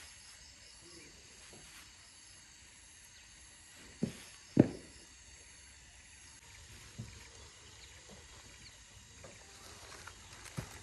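A few short, dull knocks over a faint steady outdoor background, the loudest two close together about four seconds in and lighter ones later.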